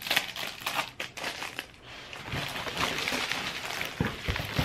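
Packaging crinkling and rustling, with scattered small clicks and knocks, as lash boxes are taken out of a shipping box; the rustling gets denser about halfway through.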